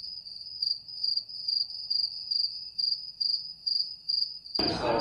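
Cricket chirping sound effect, a single high pulsing chirp about three times a second over otherwise dead silence: the stock 'awkward silence' gag after a question gets no answer.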